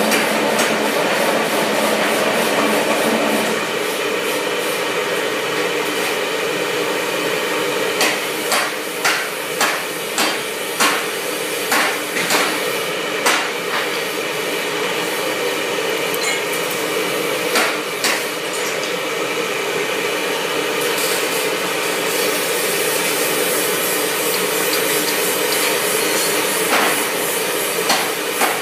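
Gas burner under a lead-melting pot burning with a steady hiss. Over it come sharp metal knocks and taps: a quick run of about ten, one or two a second, about a third of the way in, then a few more near the end.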